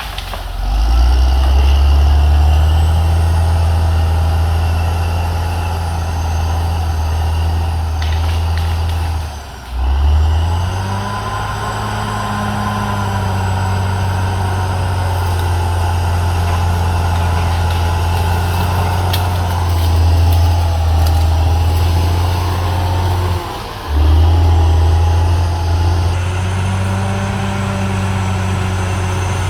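CAT D6R XL bulldozer's diesel engine running hard with a deep, steady drone and a fainter whine above it. The engine note dips briefly twice, about ten seconds in and again later, then picks back up with a rising pitch.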